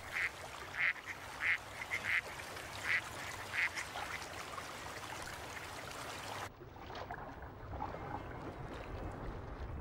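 Ducks quacking, a string of short calls in the first four seconds. About six and a half seconds in, the sound turns suddenly dull and low, with the higher sounds cut off.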